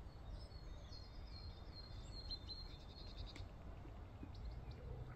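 A small bird sings a quick trill of repeated high notes in the first half, then gives a few single chirps near the end, over a faint steady low rumble.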